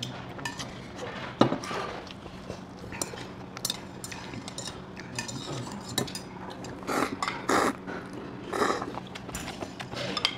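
Table eating sounds: a metal spoon and chopsticks clinking against stainless-steel bowls, with one sharp clink about a second and a half in. A few short slurps of cold noodles come about seven to nine seconds in.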